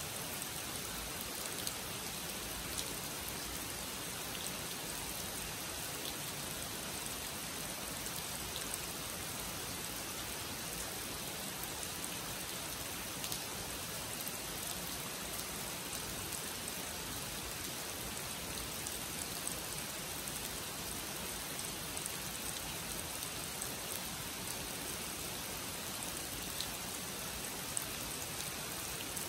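Steady rain falling on a pond and surrounding foliage, with now and then a sharper tick of a single drop landing close by.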